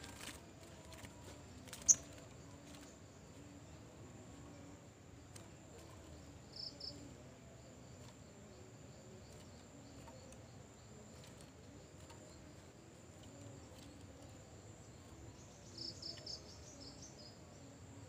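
Faint outdoor quiet with a steady high insect buzz. A sharp click sounds about two seconds in. Short high bird chirps come as a pair about seven seconds in and as a quick run of several near the end.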